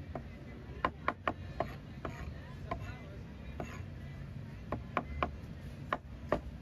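Cleaver chopping braised pork skin on a plastic cutting board: about a dozen sharp, irregular chops, some in quick runs of two or three, over a low steady background rumble.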